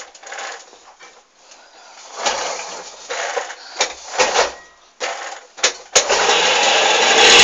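Piaggio moped engine being started: a few short bursts of cranking, then about six seconds in it catches and runs steadily and loudly.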